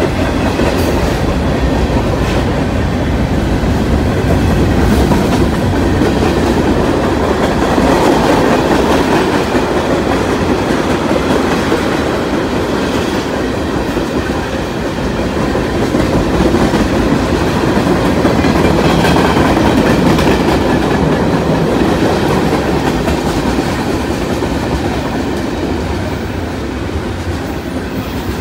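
Freight train of boxcars, tank cars and covered hoppers rolling past: a steady rumble of steel wheels on rail with the clickety-clack of wheels over rail joints.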